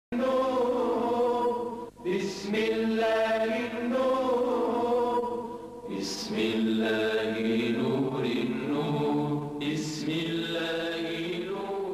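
Unaccompanied devotional vocal chant, sung in long, drawn-out melodic phrases with short breaks about two, six and ten seconds in.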